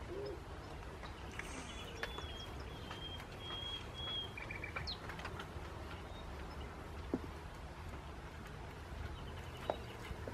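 Birds chirping, including a thin, high whistled call held for a couple of seconds about a second in, over a low steady background rumble, with a couple of sharp ticks in the second half.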